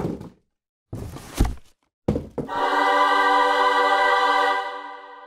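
Animated intro sound effects: several thuds in quick succession, as of a box landing and being opened, then a held musical chord that fades out near the end.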